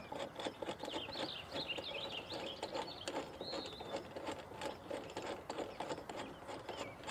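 Clamps and adjusters of a plastic Tipton Best Gun Vise being opened and handled: irregular plastic clicks, rattles and rubbing. Birds chirp in the background during the first half.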